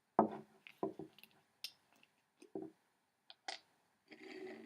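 Vinegar bottle and graduated cylinder being handled while vinegar is measured out: a series of light knocks and clicks, then a half-second rushing sound about four seconds in.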